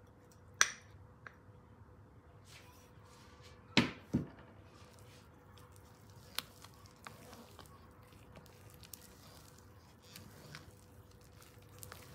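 Banana cake batter being mixed in a glass bowl: soft wet squishing, with sharp clinks of the utensil against the glass, the loudest a pair about four seconds in.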